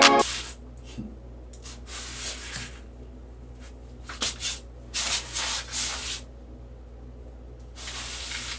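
Hands rubbing and smoothing hair, heard as several short bursts of rustling over a steady low hum.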